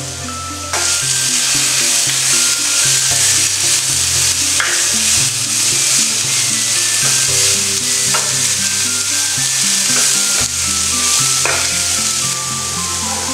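Red lentils, carrot and sliced onion sizzling as they fry in a pan, stirred and scraped with a wooden spatula. The sizzle grows louder about a second in, with a few sharper scrapes of the spatula against the pan.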